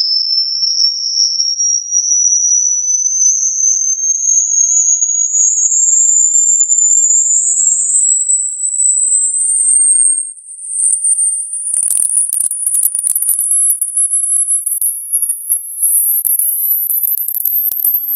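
Electronic pure test tone sweeping slowly and steadily upward in pitch, from a high whistle to a very high one, as in a low-to-high hearing-test frequency sweep. Faint crackling clicks come in over the last third.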